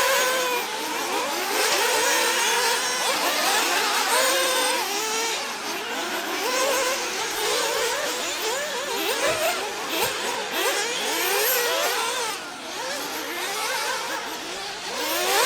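Several 1/8-scale nitro RC buggies racing, their small two-stroke glow-fuel engines whining and revving over one another, each pitch constantly rising and falling as the cars accelerate and brake.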